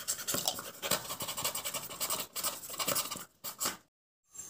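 Snap-off utility knife blade slicing through corrugated cardboard: a continuous rasping scratch of many short strokes that stops about three and a half seconds in.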